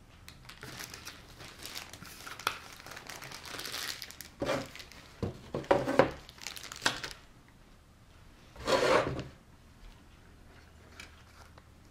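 Clear plastic parts bags from a model kit crinkling and rustling as they are handled, in irregular bursts, with a louder burst about nine seconds in.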